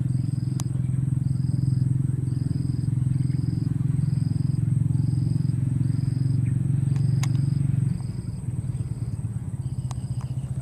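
A steady low engine-like hum that drops in level about eight seconds in, with a faint high chirp repeating evenly about every three-quarters of a second.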